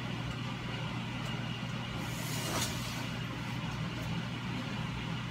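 Steady low hum of the workshop's background, with a faint brief scrape or rustle about halfway through.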